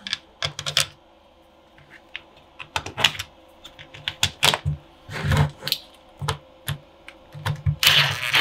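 Small plastic clicks and taps as screws are handled and set into the holes of a DeWalt 18V battery pack's plastic case. Near the end a power driver runs in short, louder spurts, driving a screw home.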